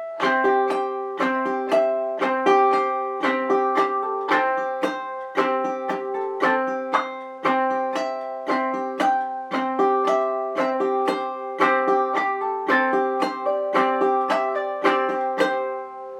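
Ukulele played in the clawhammer-hybrid style: a plucked melody note, a strum, then the thumb on the top string, repeated in a steady, bouncy "bum diddy" rhythm.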